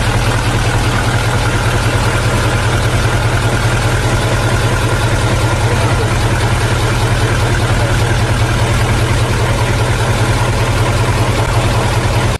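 Hino F20C V8 diesel engine of a transit mixer idling close by, a steady low throb, while the truck's air tanks are being charged with air. The sound stops abruptly near the end.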